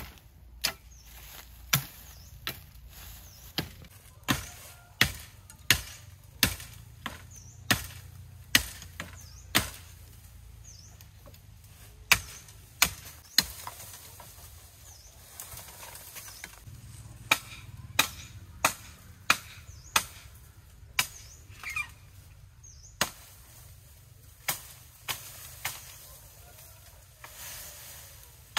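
Repeated chopping strokes, each a sharp crack, about three every two seconds, in runs broken by short pauses.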